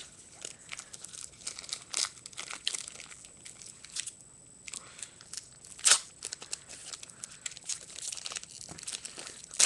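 A trading-card pack's wrapper being torn open and crinkled in the hands: a run of irregular sharp crackles, with one louder crackle about six seconds in.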